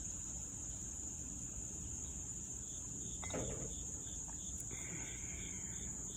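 Insect chorus of crickets: a steady high-pitched trill, with a softer chirp repeating about two to three times a second. A brief downward-sliding sound comes about three seconds in.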